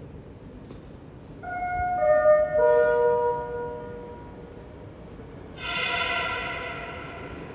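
Metro platform chime: three held tones, each lower than the last, sounding about a second and a half in, then a brighter ringing tone about five and a half seconds in that fades over a couple of seconds, just before a train arrives.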